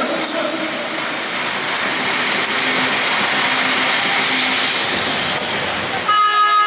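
Loud steady roar of a crowd in an indoor volleyball arena. About six seconds in it cuts off and a held tone with several overtones begins.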